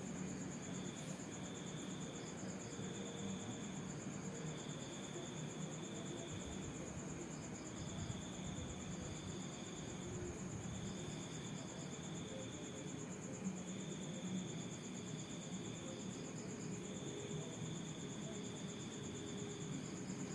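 Insects trilling: a steady high-pitched trill, with a second, lower trill that starts and stops in spells of a second or two. A low steady hum lies underneath.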